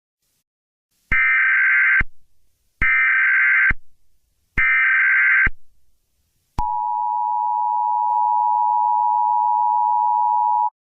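Emergency Alert System tones: three short bursts of screeching SAME header data, each about a second long with about a second between them, then the steady two-pitch EAS attention tone held for about four seconds before it cuts off.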